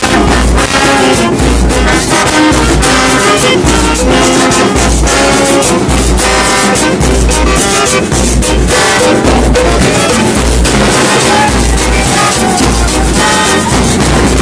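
Murga band playing an instrumental passage: trumpets and trombones carry the melody over a steady, repeating bass drum beat.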